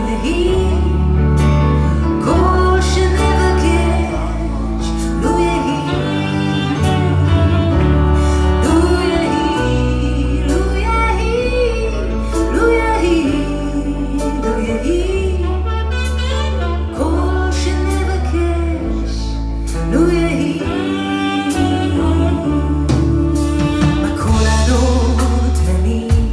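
Live band playing a song: a woman sings lead over sustained bass notes, with saxophone and backing singers.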